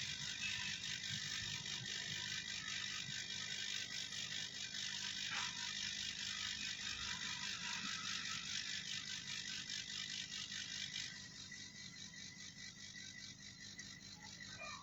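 Hot air rework gun blowing on a phone circuit board to desolder the LCD connector: a steady airy hiss with a fine flutter and a faint steady whine, dropping in level about eleven seconds in.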